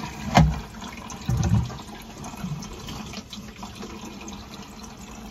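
Concealed toilet cistern being flushed: a sharp clack about half a second in as the pneumatic flush button is worked, a heavier thump about a second later, then steady running water in the cistern.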